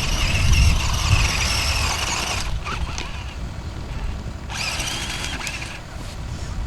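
Radio-controlled Formula Offroad car's motor and drivetrain whining high under throttle. It runs for about two and a half seconds, cuts out, then comes back in a shorter burst of a second or so. A low rumble sits under it in the first second or two.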